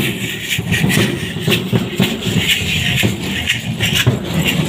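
Rhythmic rattling and clicking over low thumps, mixed with the shuffle of many footsteps on a dirt path as a procession walks.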